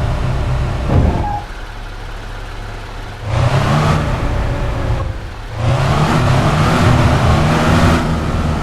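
A vehicle engine running, revving up twice, with a low rumble underneath.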